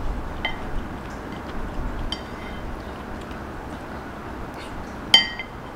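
Metal chopsticks clinking against a ceramic bowl: two light ringing clinks early on, then a sharper, louder clink near the end, over a steady background hiss.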